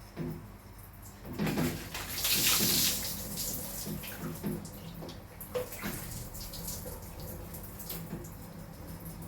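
Water running and splashing during a cat's bath, with a louder rushing spray about two seconds in that lasts about a second, and scattered small knocks and splashes.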